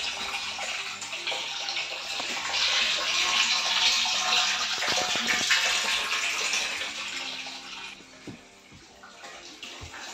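Water churning and splashing in a plastic drum as hands stir it and grab at a fish. It is loudest for a few seconds in the middle and dies down near the end.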